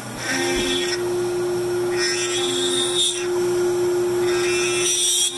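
CNC router spindle driving a small twist drill bit, peck-drilling into a pine 2x4. A steady whine runs throughout, and three bursts of cutting noise come about every two seconds as the bit pecks into the wood.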